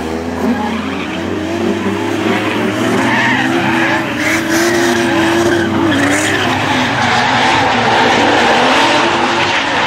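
Drift car engines revving hard, the pitch rising and falling with the throttle, over the hiss and squeal of spinning tyres. Near the end one engine holds a steadier high note.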